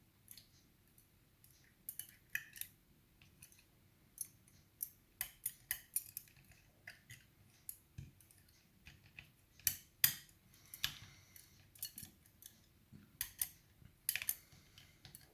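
Lock-picking tools working inside an Asec 5-lever British Standard mortice lock: the tension wire and lever pick scrape and click against the metal levers in short, irregular light metallic clicks. One or two clicks are louder, about ten and fourteen seconds in.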